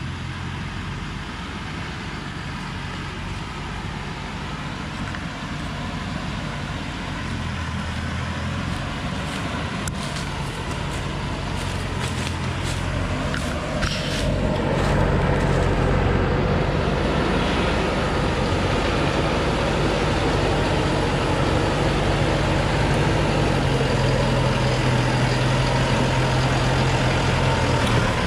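Diesel engine of a Thaco Forland truck loaded with acacia logs, running under load as it crawls along a dirt track, growing steadily louder and becoming loud about halfway through as it draws alongside. A few sharp clicks and rustles come in the middle.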